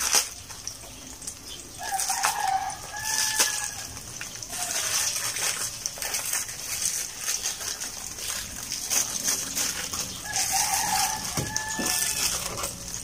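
A rooster crowing twice, about two seconds in and again near the end, over the steady hiss of cooking oil heating in a wok.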